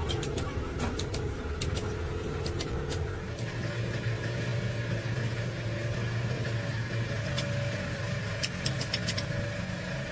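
An engine running steadily at idle, with scattered light metallic clicks and taps over it.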